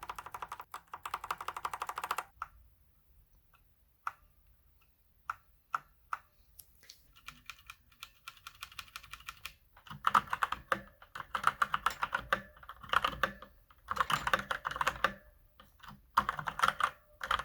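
Redragon mechanical gaming keyboard being typed on as a sound test of its key switches. A fast run of clacking keystrokes, then a pause with a few single key presses, lighter typing, and from about ten seconds in, louder bursts of rapid typing.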